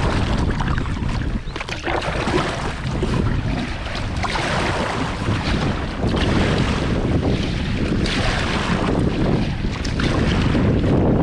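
Wind buffeting the microphone over open sea, with the splash and swish of a double-bladed kayak paddle dipping into the water stroke after stroke.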